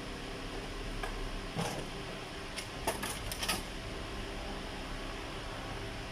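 Steady workshop background hum, broken by a handful of short, light clicks and knocks in the middle.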